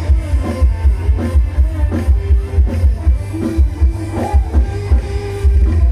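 Live band music played loud through a rot hae sound truck's PA system: a heavy, steady kick-drum beat under keyboard and bass guitar.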